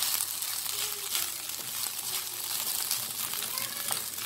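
Fried rice sizzling in a nonstick pan while a spatula stirs and turns it, with repeated short scraping strokes over a steady hiss.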